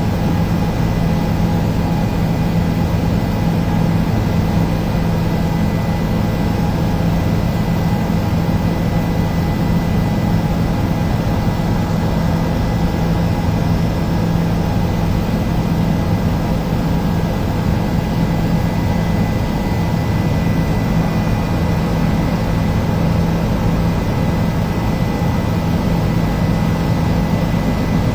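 Helicopter engine and rotor running steadily in flight, heard from inside the cabin: an even, loud drone with a strong low hum.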